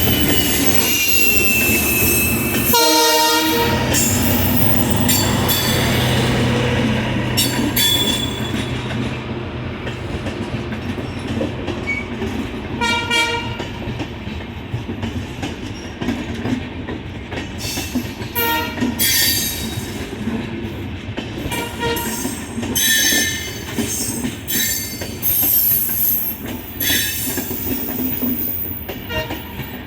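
Saraighat Express passenger train running past, its wheels rumbling and clattering over the rail joints, loudest for the first several seconds and then easing. Brief high-pitched tones cut through about three seconds in and then several more times.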